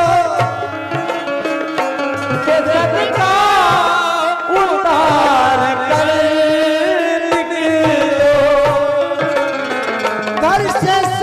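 Instrumental interlude of a Hindi ghazal: a harmonium plays a sustained melody over a steady hand-drum rhythm.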